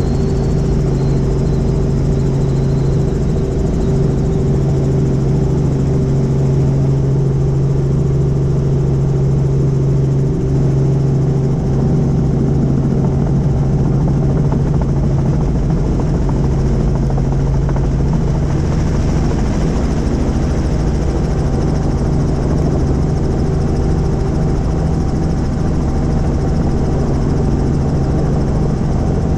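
Helicopter's rotor and engine running steadily, with a constant low hum and no change in pitch.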